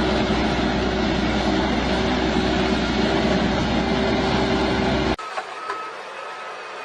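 A heavy machine running loudly and steadily with a low hum, cut off abruptly about five seconds in. A quieter machine sound with a faint high steady tone follows.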